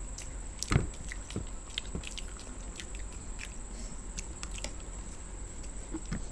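Two people biting and chewing egg bread toast close to a table microphone: many small irregular mouth clicks and smacks, with one louder knock about a second in.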